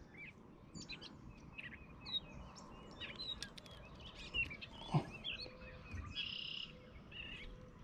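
Faint birdsong: many small birds chirping and calling in short, high notes. There is a single soft knock about five seconds in.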